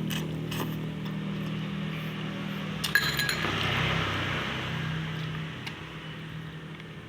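A utensil clinking against crockery a few times, with the sharpest clink about three seconds in. Under it runs a steady low engine hum that fades away.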